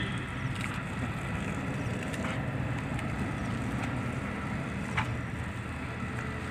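Garden hose jet spraying and splashing onto a lawn, a steady rushing noise, with a few faint clicks.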